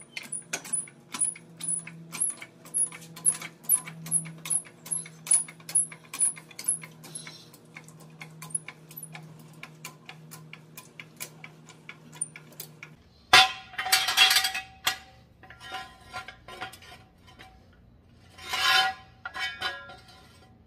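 Hydraulic floor jack being pumped by its long handle, a metallic click with a high ring about twice a second, raising the mower's front end. About two-thirds of the way in the clicking stops, and two louder bursts of metal scraping and clanking follow as a steel jack stand is set in place.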